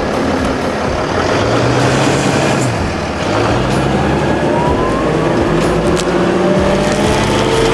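Gulf Stream motorhome's engine revving up and down under load as it is driven out of soft dirt, with a whine that climbs in pitch about halfway through.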